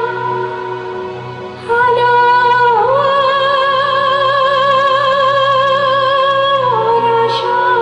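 A woman singing long held notes with a wide vibrato over keyboard accompaniment. A note swoops up a little under three seconds in, is held for about four seconds, then steps down near the end.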